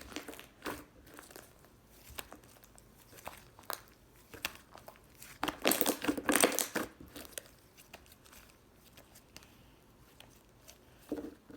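Slime being squeezed and pressed by hand, giving scattered sticky crackles and clicks, with a denser, louder cluster about halfway through and a short one near the end.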